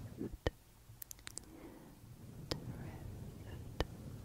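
Close-miked ASMR hand movements over a fluffy microphone windscreen: a soft low rustle, with scattered sharp clicks and a quick cluster of them about a second in.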